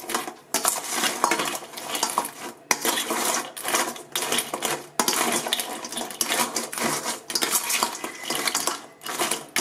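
A steel spoon stirring pieces of raw mud crab in a stainless steel bowl. The spoon and the hard crab shells clatter and scrape against the bowl continuously, with a few brief pauses.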